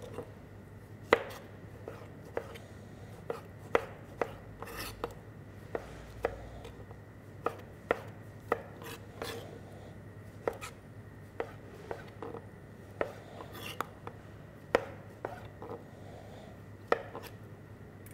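Kitchen knife dicing tomatoes on a cutting board: sharp, uneven knocks of the blade against the board, one or two a second.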